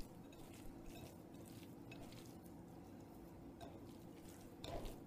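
Faint wet squishing of buttermilk-soaked bread being mashed by hand in a glass dish, over a low steady hum.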